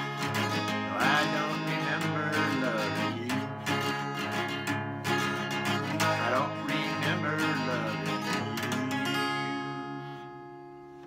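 Acoustic guitar strummed in a steady rhythm for the closing bars of a song, ending about nine seconds in on a final chord that rings out and fades away.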